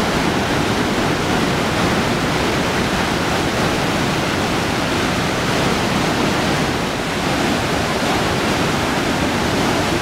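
Iguazu Falls: a heavy flow of muddy water plunging into the gorge, making a dense, steady rushing.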